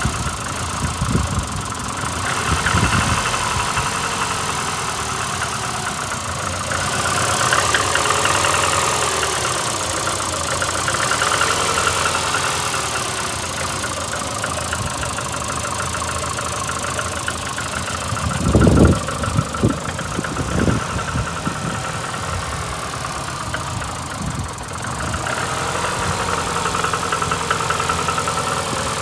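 VAZ-2115 8-valve inline-four engine idling with a fast, even ticking knock. A few louder thumps come a little over halfway through. The engine misfires and knocks, which the owner cannot trace after a blown head gasket on cylinder one and fears may be worn valves.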